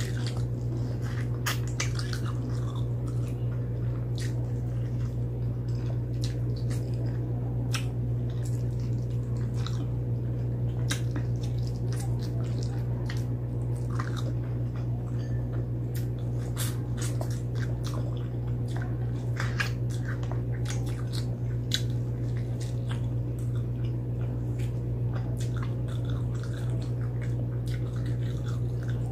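Close-miked eating of fried chicken by hand: chewing, biting and wet mouth smacks, with many short sharp clicks scattered throughout. A steady low hum runs underneath.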